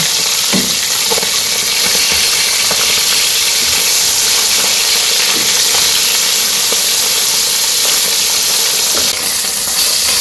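Pabda fish frying in hot oil in a wok, a steady loud sizzle, with a few light taps of a wooden spatula turning the fish.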